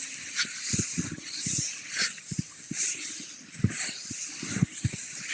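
Cross-country skis sliding and creaking over snow in a steady stride rhythm, a hissing swish about once a second, with short dull thumps in between.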